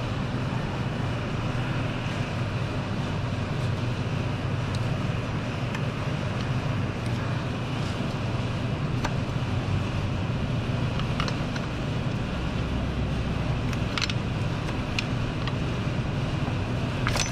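A steady low hum of workshop background noise, with a few faint clicks of metal parts being handled as the power steering pump is worked loose.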